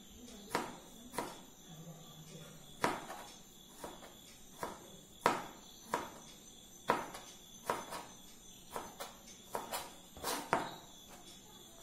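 Kitchen knife dicing a tomato on a plastic cutting board: sharp knocks of the blade on the board at an uneven pace, one or two a second, about sixteen chops in all.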